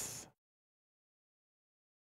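Near silence: dead, gated quiet after a spoken word trails off at the very start.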